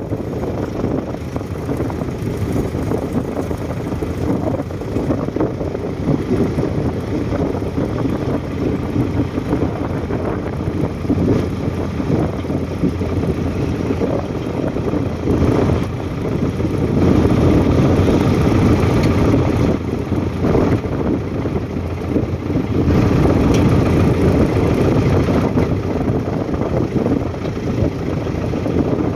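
Bulldozer engine running steadily, swelling louder for a few seconds twice in the latter half.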